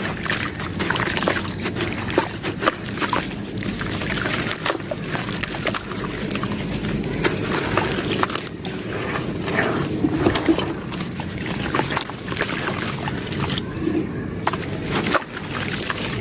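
Sand-cement chunks being crushed and crumbled, with a steady run of crunching and many sharp little cracks and snaps.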